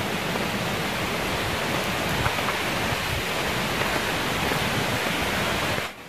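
Steady rushing of a nearby waterfall: an even, unbroken noise of falling water.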